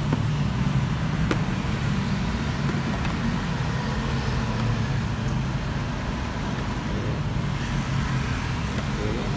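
Steady road-traffic noise with a low engine hum underneath. A single light click about a second in, from the clip-lock lid of a plastic food container being opened.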